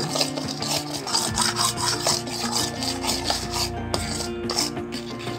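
A spoon stirring and scraping sugar syrup in a metal pan as it cooks down to caramel, in repeated scraping strokes. Background music with steady held notes plays underneath.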